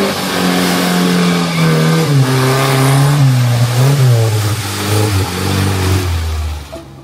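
Suzuki Vitara 4x4's engine revving hard as it ploughs through deep mud with its wheels spinning. The engine note wavers up and down and falls overall, then fades away near the end.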